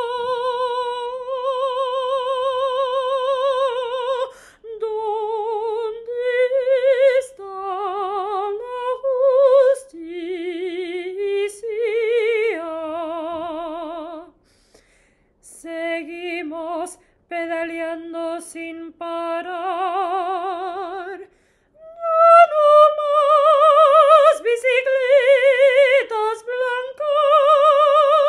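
A woman singing solo in operatic style with wide vibrato and no accompaniment. She holds long notes, breaks off briefly about halfway through, then sings louder near the end.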